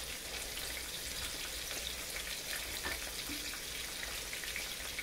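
Cornmeal-breaded catfish nuggets frying in hot oil in a cast-iron skillet: a steady sizzle with many small crackles and pops.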